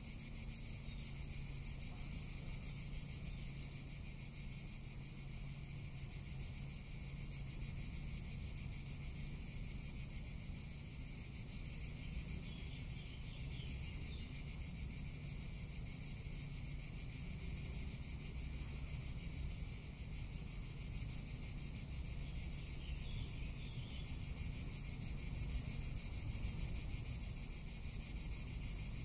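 Cicadas singing in a steady, continuous high buzzing chorus, with a low wind rumble on the microphone underneath.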